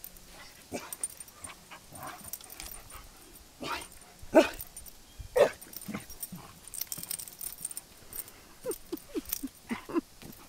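Dog barking in play, with a few sharp barks around the middle and a quick run of short, falling yips near the end.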